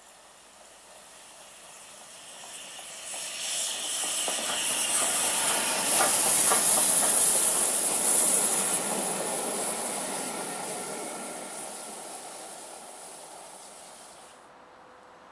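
GWR Hall class 4-6-0 steam locomotive and its coaches passing close by. The sound builds, is loudest as the engine goes past about six to eight seconds in, then fades as the coaches run away. A strong hiss of steam runs through the pass and stops suddenly near the end, with a few clicks of wheels over rail joints at its loudest.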